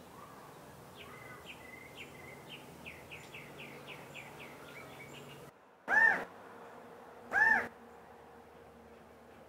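California quail giving two loud single calls about a second and a half apart, each one note that rises and then falls. Before them, faint rapid chirping runs for the first few seconds.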